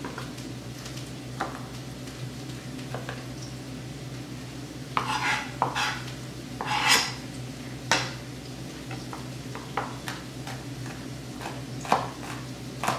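Chef's knife chopping garlic cloves on a plastic cutting board: scattered single knife strikes, with a cluster of longer, louder noises about five to seven seconds in.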